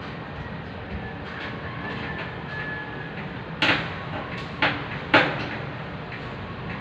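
Three sharp knocks past the middle, the last one the loudest, over a steady low background rumble.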